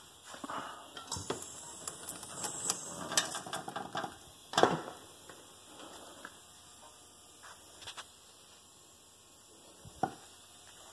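Steel tow chains and metal frame hardware clinking and rattling in a quick run of sharp clicks, then one louder metal clank about four and a half seconds in, and a single sharp click near the end.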